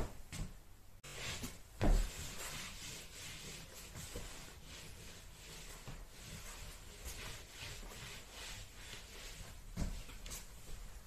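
Repeated short rubbing strokes on a wooden floor as it is cleaned by hand, with a knock at the start, another about two seconds in, and one near the end.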